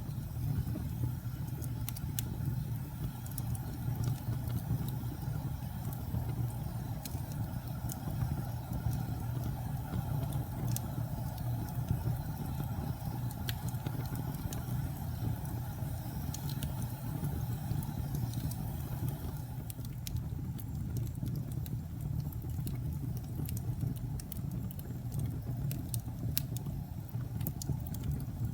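Log fire burning in a fireplace: a steady low rumble from the flames, with scattered sharp crackles and pops from the burning wood.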